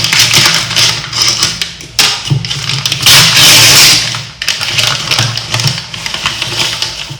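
A delivery package being handled and torn open: crinkling and rustling with clicks, and a loud tearing rip about three seconds in that lasts about a second.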